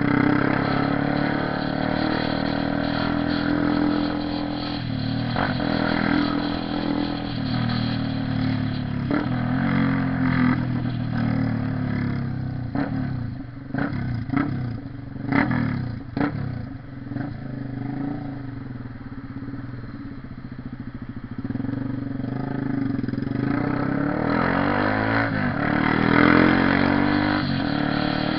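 Honda CB 300R's single-cylinder engine running under way, its pitch shifting up and down with the throttle. A run of sharp pops comes in the middle, and the engine revs up again near the end.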